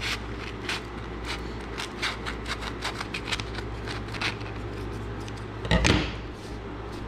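Scissors snipping through a strip of fine emery cloth in quick repeated cuts, about three a second, followed by a louder rustle of the cloth being handled about six seconds in, over a steady low hum.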